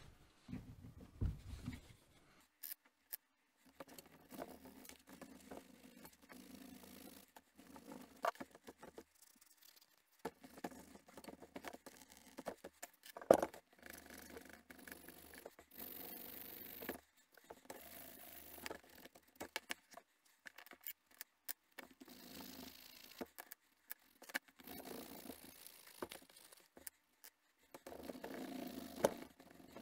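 Wooden edge burnisher rubbed briskly back and forth along the edge of a leather strap, rounding and smoothing the edge. The scratchy rubbing comes in spells of a few seconds with short pauses between, and there are scattered clicks and one sharp knock a little past halfway.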